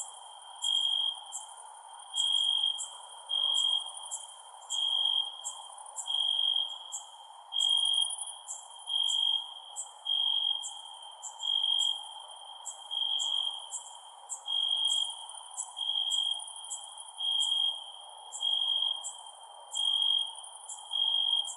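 Crickets chirping at night: a loud, clear chirp repeats about once every second and a bit, with quicker, higher ticks between the chirps. Beneath them runs a steady faint background noise.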